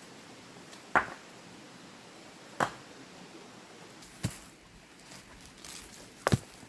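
A series of sharp knocks, about one every second and a half, with the last one doubled.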